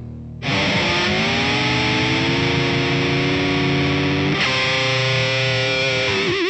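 Distorted electric guitar music: a loud chord struck about half a second in and held, moving to a new chord about four seconds in.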